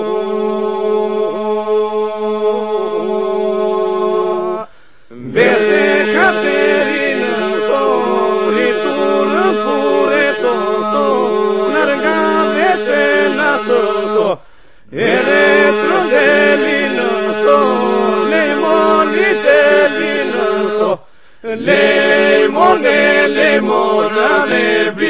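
Southern Albanian iso-polyphonic folk song sung a cappella by a vocal group: a steady held drone (iso) underneath, with ornamented melody lines weaving above it. The singing breaks off briefly three times between phrases, about 5, 14 and 21 seconds in.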